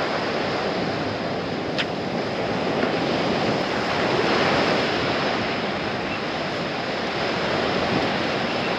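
Ocean surf breaking and washing up a sandy beach, a steady rushing noise that swells a little around the middle, with wind buffeting the microphone.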